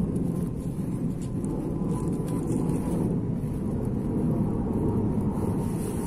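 Steady low rumbling background noise with a faint high hiss, unbroken throughout.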